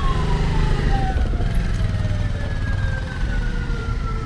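A siren wailing, its pitch falling slowly after a rise. Under it, a motorcycle engine runs close by and pulls away.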